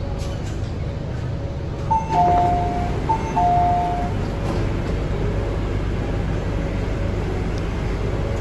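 MTR C-train passenger door chime: a high note then a lower note, played twice about two seconds in, as the sliding doors open at a station stop. Under it runs the steady low hum of the stopped train.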